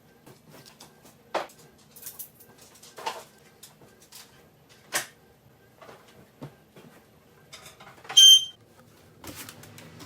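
Household objects being handled and set down while tidying a room: scattered light knocks and clicks, with a short high-pitched squeak about eight seconds in, the loudest sound, then rustling near the end.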